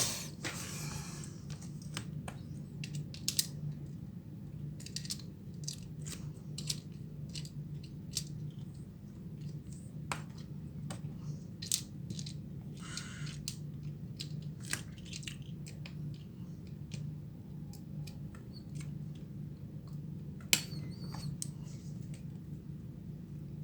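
Scattered small clicks and taps of handling a smartphone and small repair tools on a workbench, over a steady low hum. A sharper knock comes right at the start and another about twenty seconds in.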